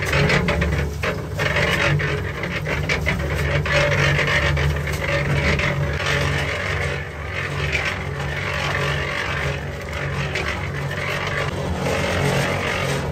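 Small electric concrete mixer running with a steady low hum, its turning drum churning sand and cement with a continuous rasping, gritty rattle. A steel shovel scrapes into sand now and then as more is loaded in.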